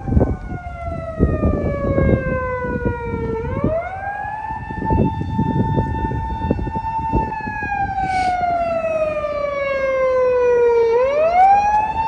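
A siren wailing. Its pitch slides slowly down over a few seconds, sweeps quickly back up, holds high, then slides down and sweeps up again near the end. A rough low rumble runs underneath.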